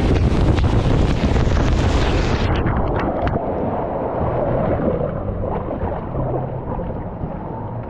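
Water rushing and wind buffeting a rider-worn camera as a rider speeds down a water speed slide and skims into the runout trough. About two and a half seconds in the high hiss drops away, leaving a lower churning of water as the rider slows in the runout.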